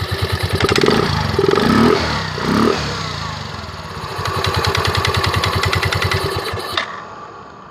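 Yamaha Mio M3 scooter's 125 cc single-cylinder engine running and being revved, rising twice in pitch, then shut off near the end. Its rear final drive now has new bearings and makes no loud grinding, only a slight bearing sound that the mechanic calls normal.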